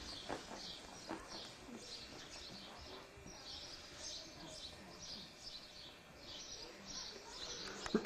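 Small birds chirping over and over, a steady run of short high chirps two or three a second, faint against the room's background noise.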